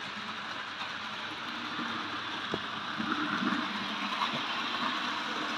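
Model trains running on the layout: a steady rushing running noise, with a sharp click about two and a half seconds in.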